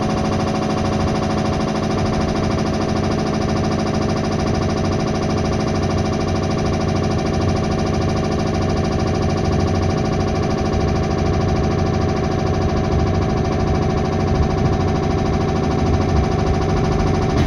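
Interior running sound of a JR 211 series electric multiple unit at steady speed: a steady, unchanging whine of several pitches over the rumble of wheels on rail.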